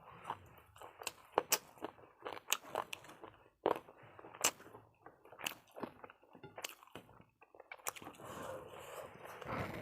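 A person eating close to the microphone: irregular bites and chewing with sharp crunchy clicks, food such as fried chicken wings.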